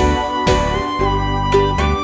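Background music: an upbeat instrumental tune with a melody over a steady beat.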